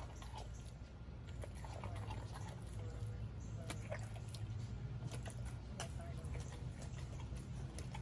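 Pit bull chewing and tearing at a raw whole chicken: irregular wet clicks and crunches from its jaws, over a steady low rumble.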